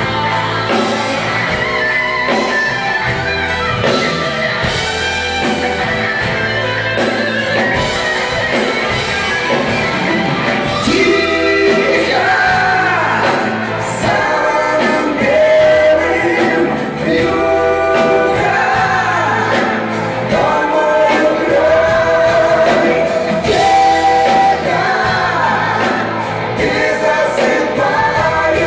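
Live rock ballad: a band playing with singing over it, the voice moving into long held notes from about ten seconds in.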